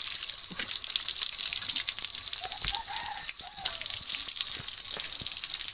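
Water running from an outdoor tap and splashing as it is caught in cupped hands and thrown onto a face. There are many small splashes and drips over a steady hiss of the running stream.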